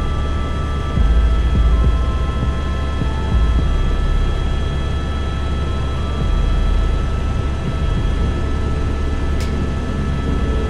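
Helicopter cabin noise in flight: a steady deep rumble from the engine and rotor with a steady high whine over it.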